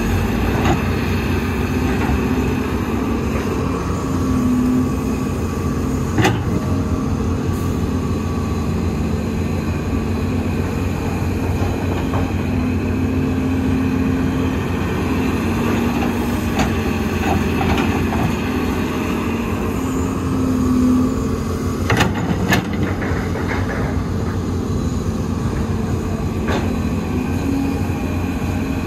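Heavy diesel earthmoving machinery running steadily, with a few scattered sharp knocks, a pair of them close together about two-thirds of the way through.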